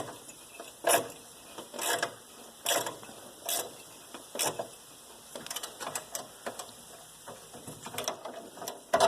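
Short-handled ratcheting wrench clicking as it is swung back and forth on a bolt, a stroke about once a second, then quicker, lighter clicks in the second half.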